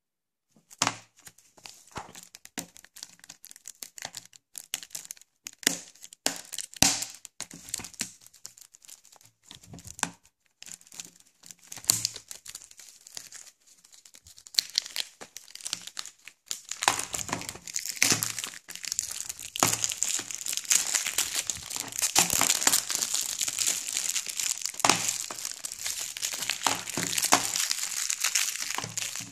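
Clear plastic shrink wrap on a Blu-ray case crinkling and tearing as it is handled and peeled off. Scattered sharp crackles come first, then from about halfway through a dense, continuous crinkling.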